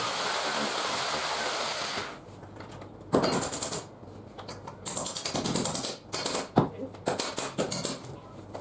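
Electric hand drill running steadily as it bores into the wall, stopping about two seconds in. After it comes a run of irregular clicks and knocks, with sharp knocks a little after three seconds and again past six seconds.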